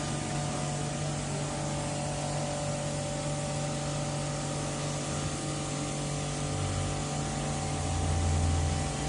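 Brake disc grinding machine running, its electric motors giving a steady hum with several held tones. A deeper low rumble swells up over the last couple of seconds.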